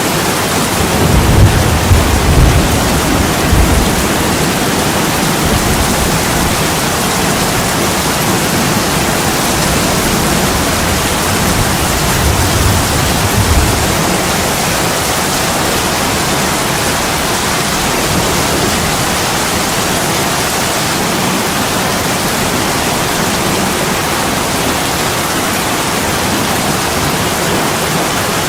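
Heavy rain falling steadily against an attic window, a dense even hiss. Low rumbles swell under it twice: within the first few seconds and again shortly before the halfway point.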